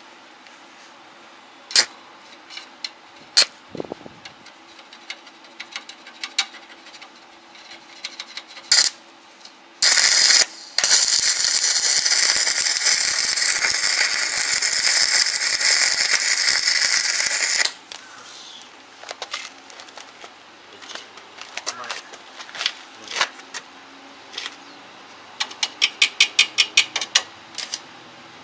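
Arc welding on a steel caster-wheel mount: after a brief first strike the arc crackles and hisses steadily for about eight seconds, then stops. Scattered clicks and knocks before it, and a quick run of even taps near the end.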